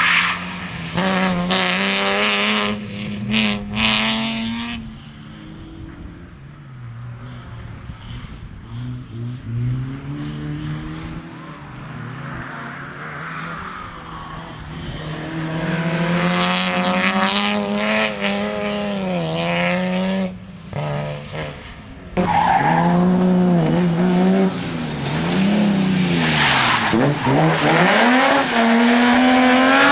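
BMW M3 Compact engine being driven hard, its pitch repeatedly rising and falling through the revs, with tyre squeal. The engine note cuts out briefly a few times, which fits the misfire the car has. It gets suddenly louder about two-thirds of the way through.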